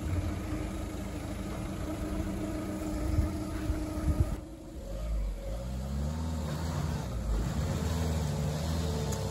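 A motor vehicle engine running steadily. After a sudden change about four seconds in, it is heard again with a deeper rumble, its pitch rising and falling several times as it revs.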